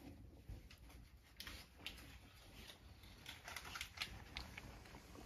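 A cat crunching small dry treats from a bowl: faint, crisp clicks in two bursts, one about a second and a half in and another a little later.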